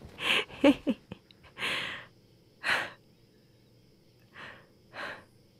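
A woman's breathing: a brief voiced sound like a short laugh near the start, then a few separate breaths and sighs about a second apart, as if catching her breath after play-wrestling.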